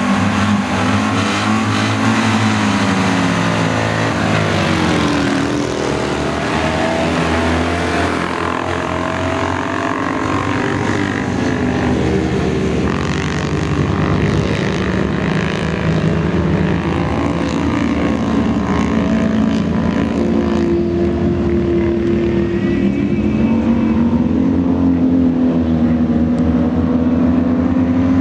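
A pack of Citroën 2CV autocross cars' air-cooled flat-twin engines running hard together, their pitches rising and falling as they rev through the corners. The sound turns duller after about ten seconds as the cars draw away.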